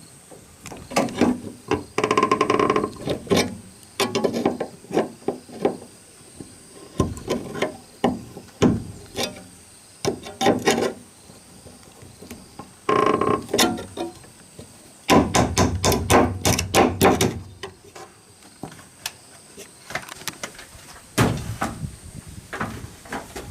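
Hand digging tool chopping and scraping into grass and soil in irregular strokes, some in quick runs, with a steady high insect drone behind.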